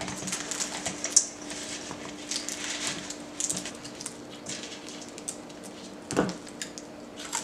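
Popcorn crackling and rustling as it is mixed by hand into sticky melted marshmallow in a metal mixing bowl, in irregular bursts that thin out in the second half.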